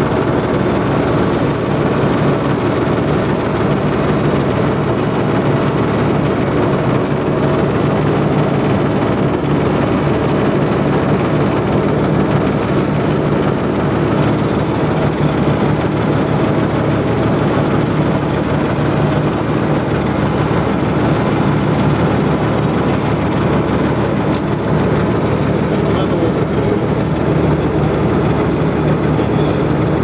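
Small excursion boat's engine running steadily under way: an even drone with several steady low tones.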